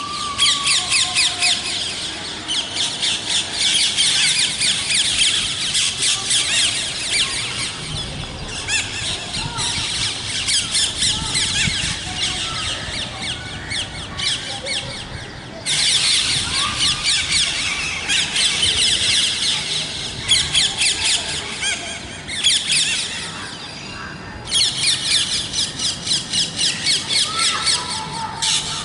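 Many parrots screeching and chattering together in a dense stream of rapid, shrill, overlapping calls. The calling breaks off and starts again abruptly a few times.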